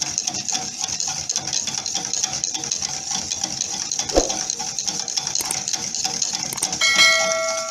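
A utensil stirring thickening pastry cream in a metal pot, scraping quickly and steadily against the pot. There is a knock about four seconds in, and a ringing metal clang near the end.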